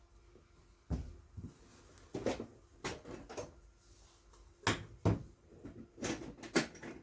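Tools being handled and set down on a work table: a handful of scattered knocks and clacks, with the loudest about two-thirds of the way through.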